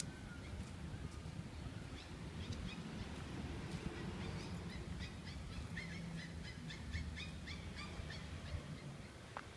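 Many small birds chirping in short, quickly repeated notes, thickening from about two seconds in, over a steady low hum of city traffic.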